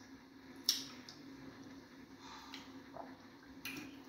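Close-up wet eating sounds from eating fufu and egusi soup by hand: soft squishing of the fufu and soup with a few sharp wet smacks, the loudest about two-thirds of a second in. A faint steady hum lies underneath.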